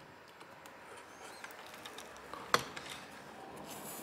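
Faint handling sounds of fingers and a tool working at the edge of a laptop display panel, with one sharp click about two and a half seconds in.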